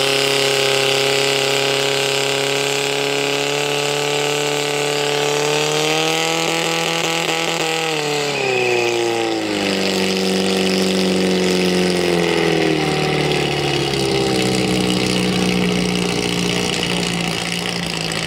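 Portable fire pump's engine running hard at high revs. About eight seconds in, the pitch falls and it settles into a lower, steady run.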